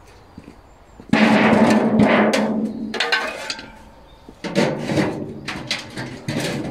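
Galvanised metal bin clanging and rattling as ashes are knocked and tipped out of it, in two bouts: a loud one about a second in lasting about two seconds, and another from about four and a half seconds in.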